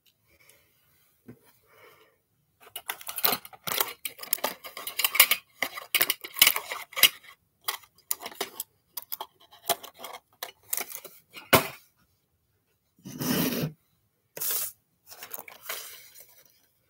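Small objects being handled, moved about and set down on a wooden tabletop: a dense run of clicks and clatter, then a few separate knocks and a short rough noise late on.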